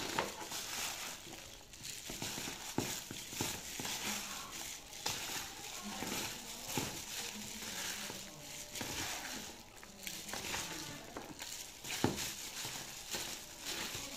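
A plastic bag worn over a hand crinkles and rustles as it tosses sauced instant noodles in a steel bowl. The noodles squish wetly, and there are a few sharp clicks.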